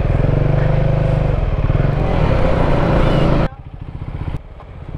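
KTM 390 Adventure's single-cylinder engine pulling away under throttle. The engine note drops suddenly about three and a half seconds in, stays low for about a second and a half, then comes back up near the end.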